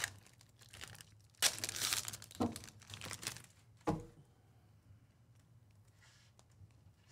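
Wrapper of a trading card pack being torn open and crinkled, in a few short crackling bursts, followed by a single soft knock.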